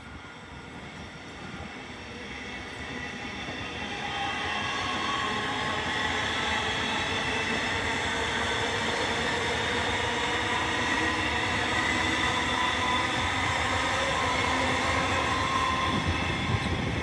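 X'Trapolis electric suburban train running through the station, growing louder over the first few seconds as it approaches and then passing close by with a steady rumble. Several high, steady whining tones run over the rumble, with a few low knocks near the end.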